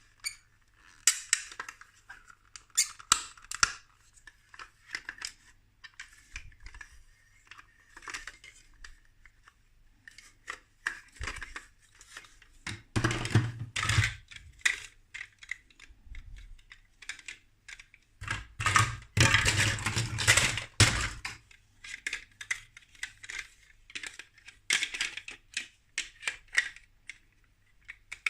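Plastic building bricks clicking and clattering as a toy vehicle is put together by hand: many small separate clicks, with two longer stretches of rattling pieces about halfway through and again around two-thirds of the way in.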